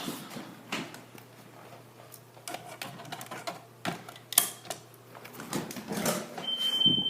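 Irregular clicks, knocks and rustles of someone handling things and moving about. Near the end comes a single high-pitched electronic beep lasting about a second.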